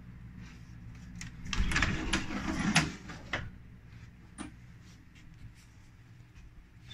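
A white closet door being opened by hand: a couple of seconds of clicking and rubbing as it swings open, then a few light knocks.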